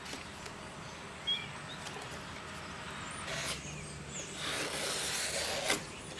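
Quiet handling of a piece of luan plywood on a workbench: a soft scraping rustle about four and a half seconds in, a click just before it, and a few faint high chirps, over a low steady hum.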